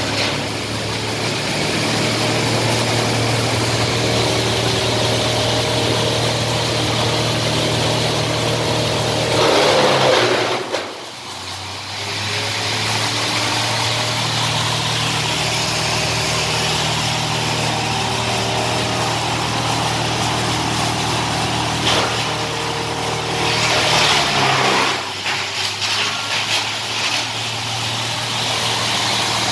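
Wood crusher running at speed with a steady hum and the hiss of sawdust being thrown out. Twice, about ten and twenty-four seconds in, it grinds through a piece of wood with a louder, harsher burst, and its speed sags under the load before picking back up.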